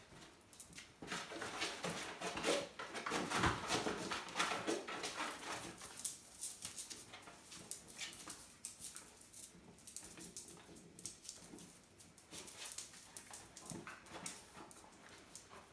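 Puppies scuffling on and around a cardboard box, with paws and teeth scratching, scraping and crackling the cardboard and claws pattering on the floor. It is busiest and loudest from about a second in for a few seconds, then lighter.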